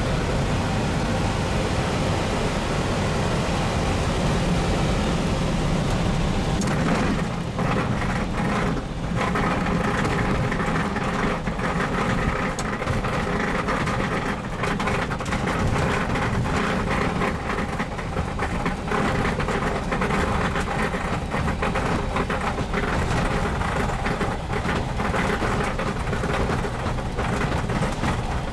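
Single-engine ultralight aeroplane heard from inside the cockpit, its engine running steadily under a rushing noise. From about seven seconds in, rattling knocks run through it as the wheels roll over the grass strip.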